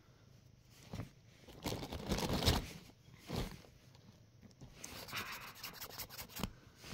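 Nylon pop-up cat tunnel rustling and scraping in irregular bursts as a cat scuffles and paws inside it and a hand presses on the fabric.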